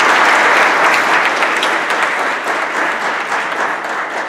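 Audience applauding, loudest at the start and slowly tapering off toward the end.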